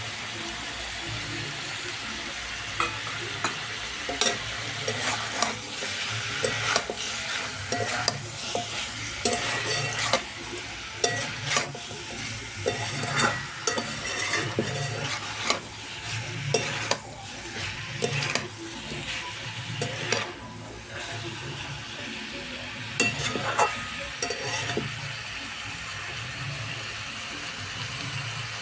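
Chicken curry sizzling in a pan while it is stirred, with a steady frying hiss. A utensil knocks and scrapes against the pan in irregular strokes from about three seconds in until shortly before the end.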